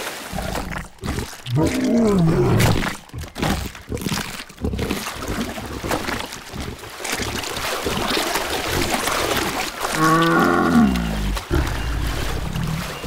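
Animated dinosaur's vocal calls, each falling in pitch, one about two seconds in and a louder one about ten seconds in, over splashing water.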